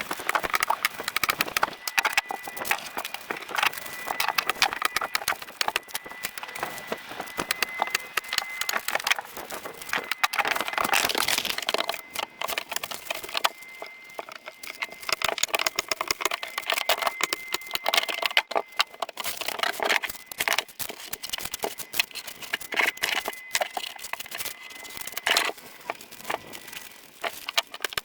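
A dense, irregular clatter of taps and knocks, with a faint steady high whine through much of it.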